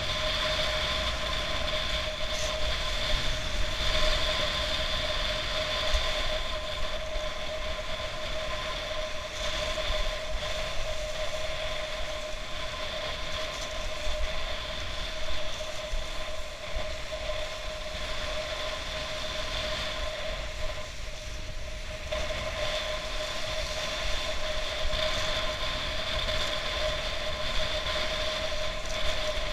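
Wind and water rushing past an action camera skimming through the surf behind a kite, a steady low rumble with buffeting and a steady high whine over it that dips for a moment about two thirds of the way through.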